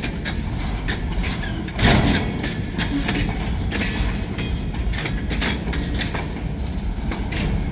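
Freight train cars rolling past: a steady rumble with wheels clicking over the rail joints, and a louder knock about two seconds in.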